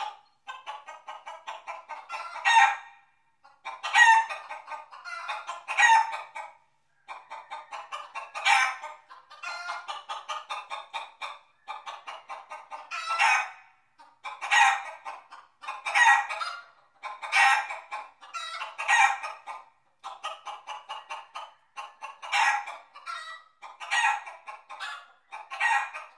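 Chickens clucking: runs of quick clucks, each building to a louder cackle, repeated every second or two.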